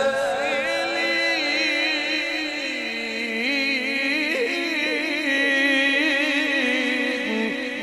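A male qari's Quran recitation in the melodic Egyptian style: one long drawn-out phrase in which the voice glides up and down in pitch with quick wavering trills, amplified through a microphone.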